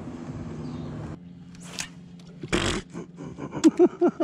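A spinning rod cast with the reel's bail left closed: a quick swish and then a loud thump as the lure stops short. A person then laughs in short bursts that fall in pitch, several a second, near the end.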